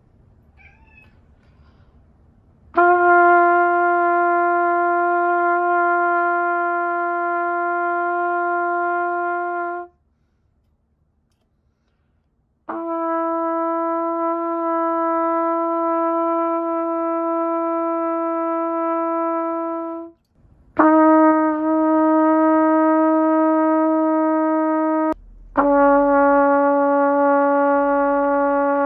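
Trumpet playing long tones: four long held notes, each a little lower than the one before, with short pauses between them.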